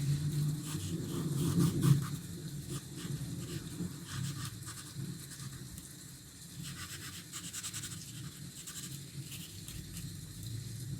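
Drawing strokes scratching across sketchbook paper, many short quick strokes, over a low hum that is loudest in the first two seconds.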